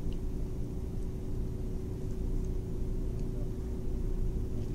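Steady low background hum with a faint steady tone, and a few faint light clicks scattered through it.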